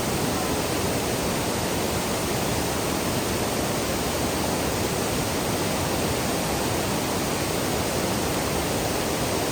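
Steady rush of fast-flowing creek water pouring over rocks.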